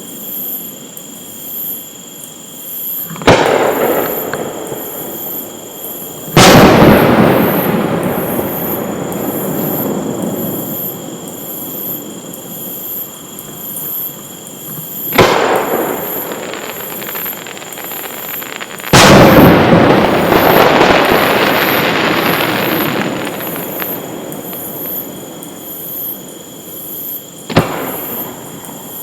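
Aerial fireworks shells bursting overhead: five sharp booms a few seconds apart. The two loudest, about six seconds in and again near two-thirds through, are each followed by a long crackling, rumbling tail that dies away over several seconds.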